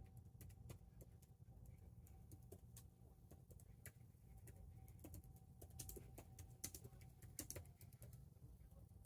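Near silence: faint, irregular clicks over a low, steady hum.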